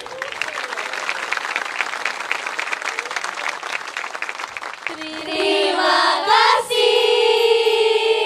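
Theater audience applauding, then about five seconds in a group of young women's voices calls out a long, drawn-out "terima kasih" in unison, gliding up and holding a note.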